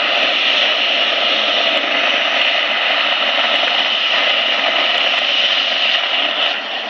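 SPRAYtec UMAP 60 water-mist unit spraying fog over hot slag: a steady rushing hiss, easing slightly near the end.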